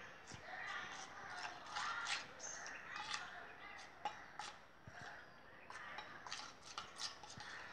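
Metal spoon stirring and scraping a wet shikakai and hibiscus powder paste in a steel bowl, giving faint, irregular clicks and scrapes.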